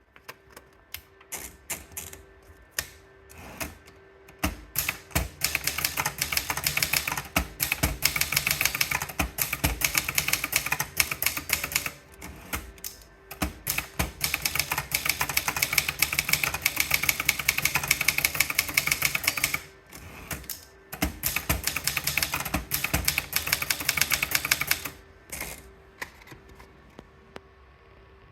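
Brother Deluxe 1300 typewriter being typed on: a few single key strikes at first, then three long runs of fast typing separated by short pauses, and a few last strikes near the end.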